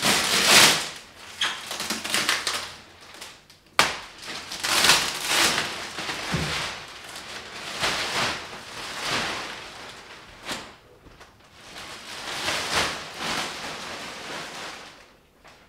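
Plastic wrapping sheet being pulled and bunched off a couch, rustling and crinkling in irregular loud swells, with one sharp click about four seconds in.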